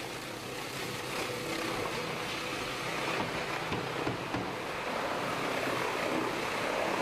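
Steady rushing noise with a faint low hum from the machinery and steaming cooking kettle of a sausage kitchen.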